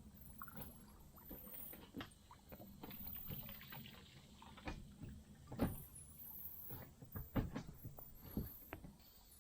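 Kayak on a river: faint paddle strokes and dripping water, with scattered sharp knocks, the two loudest a little over halfway through.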